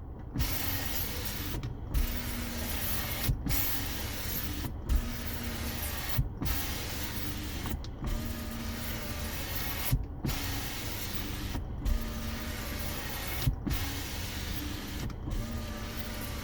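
Kia K5 power window motor running the door glass partway down and back up again and again, about ten strokes of roughly a second and a half each, with a short stop and click at every reversal. The glass grinds and creaks in its seals, as if sand were in the channel: the squeak of a window that has not yet been broken in.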